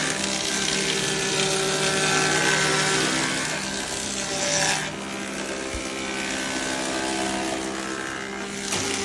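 Double-sided thickness planer running with a steady hum while wood is fed through, its cutters making a loud hiss that drops away about five seconds in and comes back near the end.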